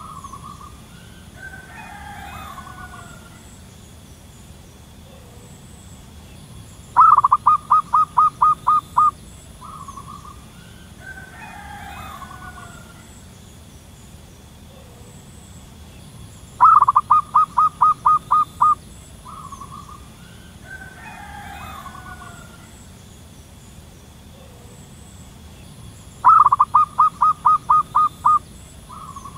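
Wild zebra dove calling: three times, about ten seconds apart, a quick run of about eight staccato notes. Softer, tangled bird calls come in between.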